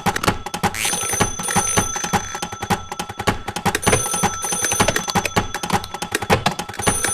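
Bell-type ringer sounding in bursts of about a second with high steady tones, over dense rapid clicking, played back from a household-sounds recording.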